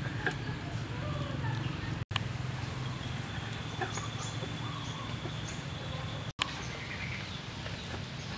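Outdoor rural background: scattered short bird chirps over a steady low hum, broken twice by brief sharp dropouts.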